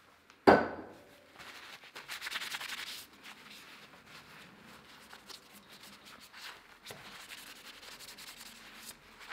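A sharp knock about half a second in, then a paper towel rubbing and wiping over a Shimano Ultegra road brake lever, harder at first and lighter from about three seconds on.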